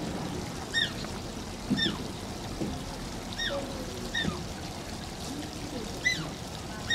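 Asian small-clawed otter squeaking: about six short, high chirps, each falling in pitch, roughly one a second.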